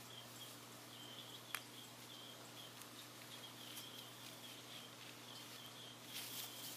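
Near-quiet room tone with a steady low hum and faint high chirps coming and going, one small click about a second and a half in, and light rustling near the end.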